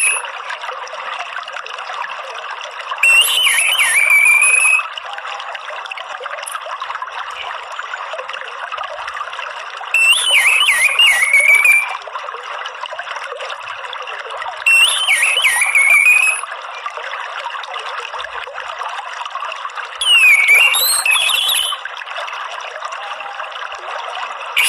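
Orange-headed thrush (anis merah) giving four short, wavering call phrases of the chattering 'ngeriwik' kind, about every five to six seconds. Behind them runs a steady trickle of flowing water.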